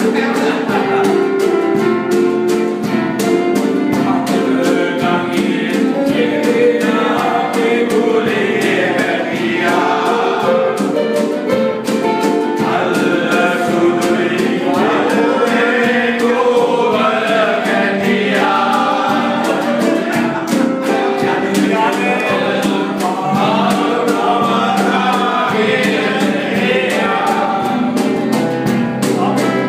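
A group of men singing together in chorus, loosely in unison, to a steady beat.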